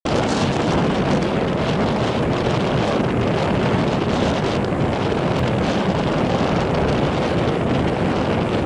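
Strong wind of about 10 to 11 m/s blowing on the microphone, a loud, steady rush of noise.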